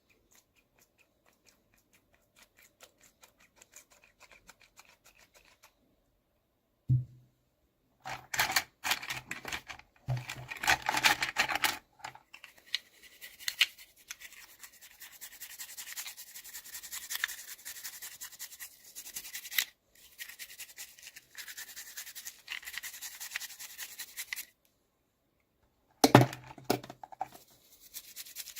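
Hands opening and handling miniature toy packaging: rustling and crinkling, with a low knock about seven seconds in and another near the end.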